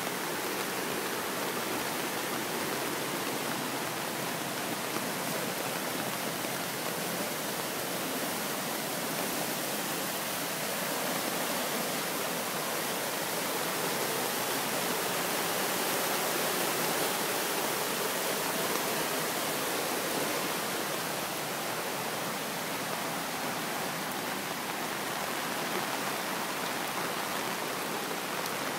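Steady rushing of muddy floodwater pouring across lawns and a street after a torrential downpour, swelling a little about halfway through.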